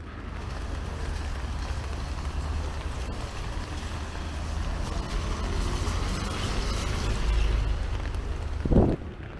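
A motor vehicle passing on a wet street: a low rumble with tyre hiss that builds to a peak about seven seconds in, then a brief loud thump shortly before the sound falls away.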